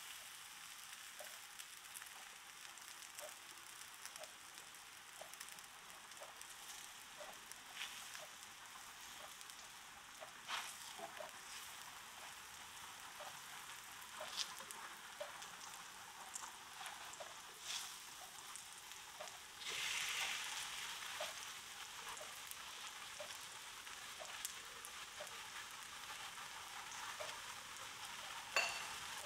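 Crumpet batter frying in a hot frying pan: a low, steady sizzle with small crackles all through. The sizzle swells louder for about a second and a half roughly two-thirds of the way in, as a crumpet is turned onto its raw side, and a few sharp clicks come near the end.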